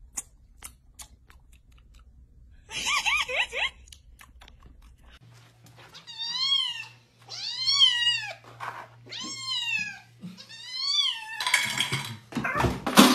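Orange kitten meowing four times in a row, each a high, arching cry lasting under a second, followed near the end by a loud burst of scuffling noise.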